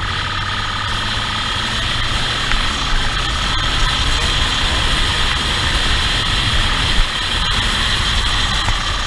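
Motorcycle running at speed, its engine mixed with heavy wind rush over the mounted camera's microphone and a steady high whine, with a few small knocks.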